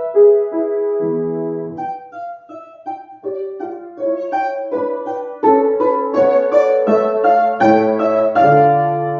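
Solo piano playing a light classical piece, a melody of separate notes over held bass notes, with a brief quieter passage a little after two seconds in before it grows fuller again.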